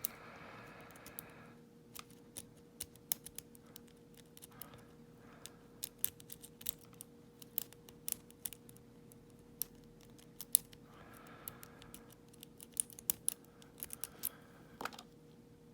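Lock pick raking the pin stack of an old all-brass Yale dual custody padlock: quick, irregular metallic clicks and light scraping throughout. The pins are heard dropping and setting, about four or maybe five of them by the picker's count.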